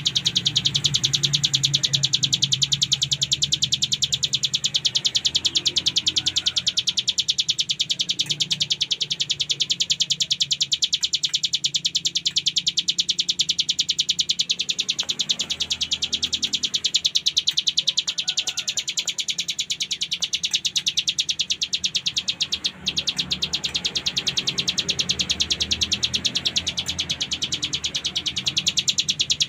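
Ciblek gunung (mountain prinia) singing its 'ngebren' song: a continuous, very fast buzzing rattle of high notes, barely pausing once about two-thirds of the way through.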